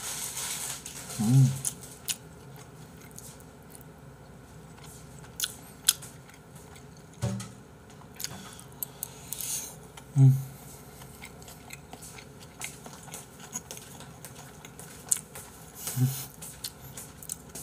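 Mouth-close eating sounds: chewing of fried rice, with scattered sharp clicks of a metal spoon against a stainless steel bowl. A few short low hums from the eater come about a second in, near the middle and near the end.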